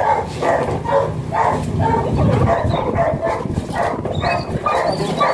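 A dog barking over and over, about two barks a second.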